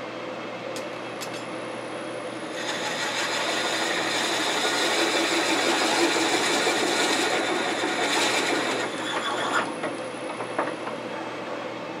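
Wood lathe running while a 1 1/4-inch Forstner bit is fed into the spinning wooden blank, boring a shallow recess. The rough cutting noise starts a couple of seconds in and stops a few seconds before the end, leaving the lathe's steady hum.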